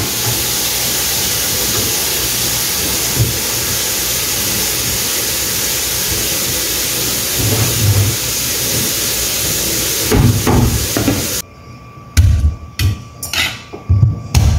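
Tap water running steadily into a kitchen sink while greens are rinsed, with soft knocks from handling, cutting off suddenly about three-quarters of the way through. Then a few sharp knocks and clinks of kitchen utensils.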